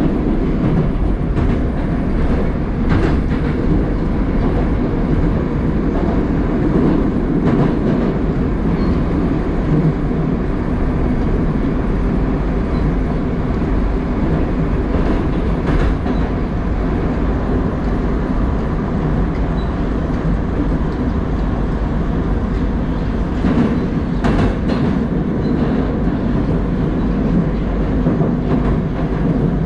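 Running noise of a Moscow Metro 81-760/761 'Oka' train car under way, heard from inside the car: a steady low rumble of wheels on rail. A few sharp clicks stand out, spread through it.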